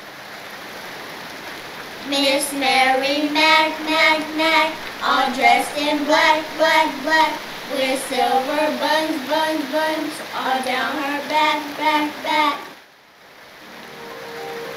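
A child singing a short, rhythmic tune over steady rain. The singing starts about two seconds in and stops a couple of seconds before the end, leaving the rain.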